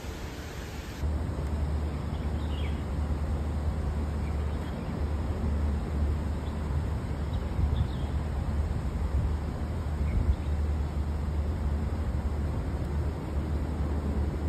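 Outdoor ambience: a steady low rumble with a few faint bird chirps. It gets louder about a second in.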